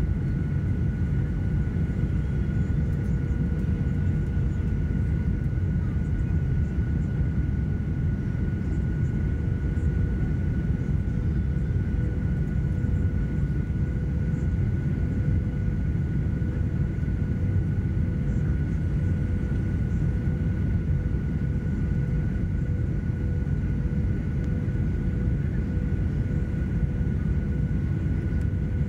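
Cabin noise of a Boeing 737-900ER on approach, heard from a window seat by the wing: the steady low roar of its CFM56-7B engines and the airflow, with two steady whines, one high and one lower.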